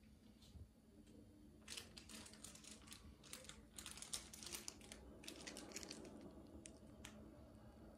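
Faint, irregular clicking and crinkling, thickest from about two to five seconds in and thinning out by about seven seconds, over a quiet low hum.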